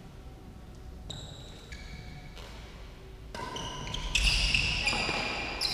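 Sports shoes squeaking on an indoor court floor during a badminton rally: a string of short, high squeaks of different pitches, loudest over the last second and a half, mixed with racket hits on the shuttlecock.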